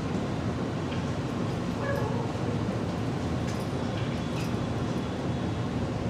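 Steady background hum and hiss, with faint scratches of a marker writing on a whiteboard.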